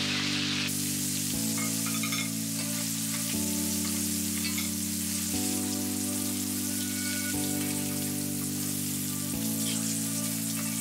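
Oil sizzling steadily as battered chicken pieces deep-fry in a wok for their second frying. Background music runs under it, with held chords that change about every two seconds.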